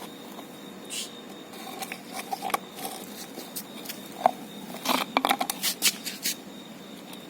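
Puppies at a milk bowl: a run of small clicks, knocks and scrabbling, busiest about five to six seconds in.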